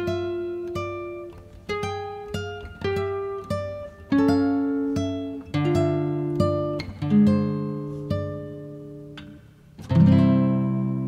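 Background music: an acoustic guitar plucking single notes in a slow melody, each note ringing and fading. A fuller strummed chord comes near the end and rings on.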